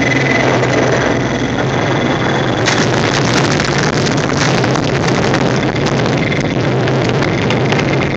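Steady rushing rumble in the cockpit of a Grob G103 Twin Astir II glider as it rolls along the runway on landing: airflow and the wheel on the tarmac. From about three seconds in, quick knocks and rattles join it.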